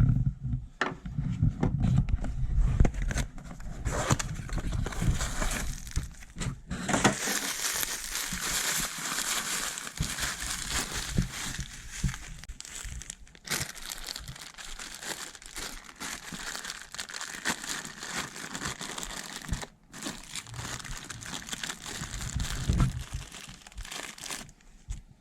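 A few light handling knocks, then about seventeen seconds of steady crinkling and rustling, likely the plastic packaging of the new exhaust VVT solenoid being torn open and handled.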